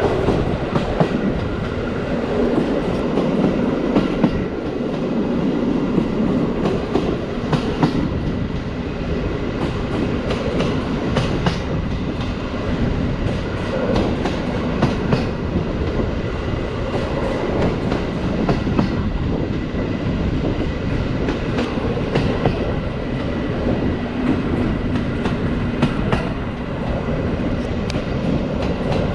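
Passenger train coach running along the track: a steady rumble of wheels on rail with frequent irregular clicks and knocks, the wheels clattering over rail joints.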